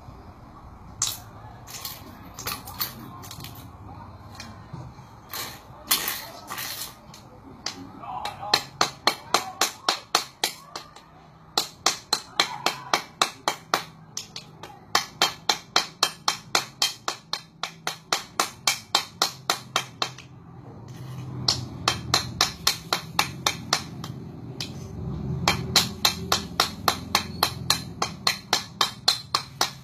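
Metal cleaver blade striking a small jade offcut over and over, sharp clacks of metal on stone. A few single knocks come first, then quick runs of several strikes a second with short pauses between them.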